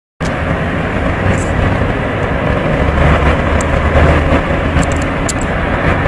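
Antonov An-225's six D-18T turbofan engines running during its takeoff roll: a loud, steady jet rumble, deepest in the low end.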